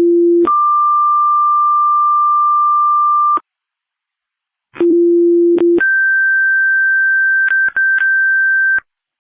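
Fire dispatch two-tone sequential pager tones over a radio: a low tone ending about half a second in, then a higher tone held about three seconds. After a gap of about a second and a half comes a second pair, a low tone of about a second followed by a different, higher tone held about three seconds with a couple of brief dropouts. This is the tone-out that alerts the fire stations to a call.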